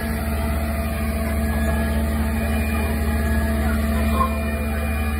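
Fire engine's diesel engine running steadily, a low, even drone with a constant hum above it.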